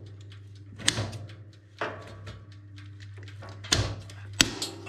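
Kitchen scissors snipping through the wing joint of a raw chicken: several sharp snips and crunches, the loudest near the end, over a steady low hum.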